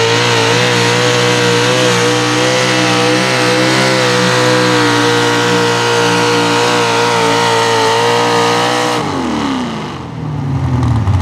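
Pro stock four-wheel-drive pulling truck's engine held at high, steady revs under full load while dragging the pulling sled. About nine seconds in, the revs fall away quickly as the truck comes off the throttle at the end of its pull.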